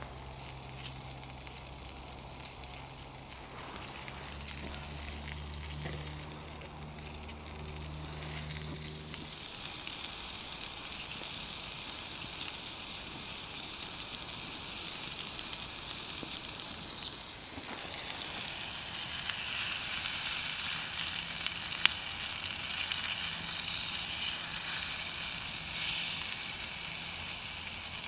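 Chicken and sliced red peppers sizzling as they fry in a small stainless steel pan over a wood-fired hobo stove, a steady hiss that grows louder about two-thirds of the way through.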